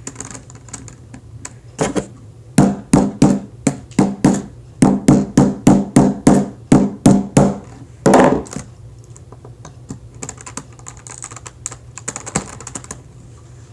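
A small hammer tapping a plastic Rubik's Cube piece into place: a run of about fifteen sharp, hollow taps, roughly three a second, over some six seconds. A short half-second rattle follows, then a few faint taps near the end.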